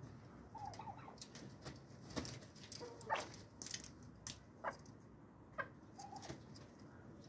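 Domestic chickens clucking softly, with a few short, sharp calls in the middle.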